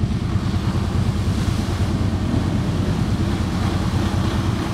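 ATV engines running with a steady low rumble as a four-wheeler drives through a shallow, watery mud pit, under a continuous rushing noise.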